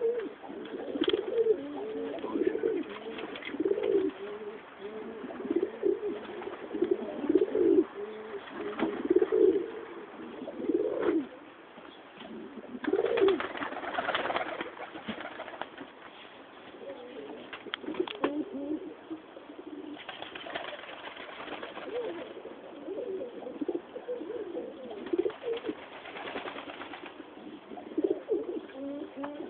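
Several domestic tumbler pigeons cooing, with many low coos repeating and overlapping one another.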